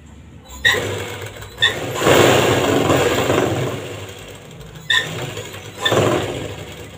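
Domestic sewing machine stitching a seam through cotton fabric. It runs in one long burst of about four seconds, then a short second burst near the end, with sharp clicks as it starts up.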